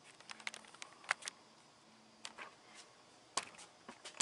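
Faint, scattered light clicks and taps, about ten at irregular intervals, the sharpest about a second in and again about three and a half seconds in.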